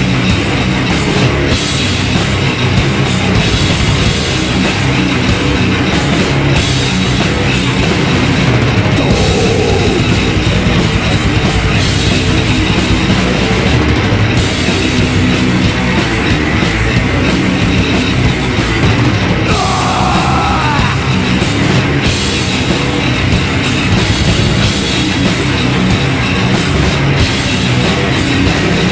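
Live heavy metal band playing at full volume: two distorted electric guitars, bass and a drum kit pounding steadily, with no break.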